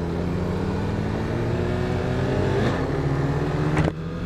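Motorcycle engine running steadily as the bike rolls along at low speed, heard from a camera on the bike. Near the end a helmet visor snaps shut with one sharp click.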